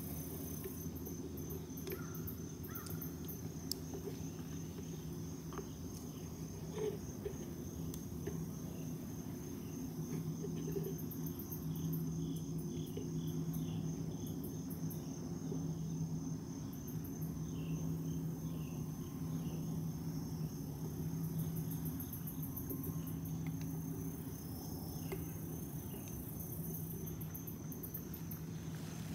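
Late-summer insect chorus: crickets and other insects trilling steadily, one pulsing trill constant and higher buzzes coming and going. Under them runs a steady low drone.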